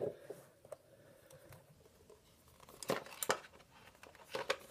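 The cardboard phone box and packaging being handled as the phone is lifted out. It is quiet at first, then there are a few short rustling scrapes about three seconds in and again near the end.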